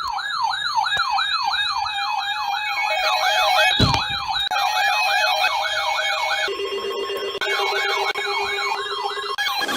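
Electronic emergency-vehicle sirens yelping in rapid rising sweeps, about two and a half a second, with a second siren pattern overlapping partway through. A brief thump comes about four seconds in. A steady lower tone joins during a short break in the sweeps after six seconds.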